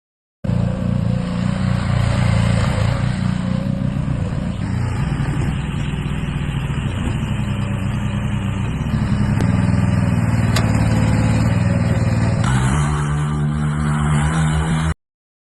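An engine running at a steady level, its note shifting about four and a half seconds in and again near the end. It starts and stops abruptly.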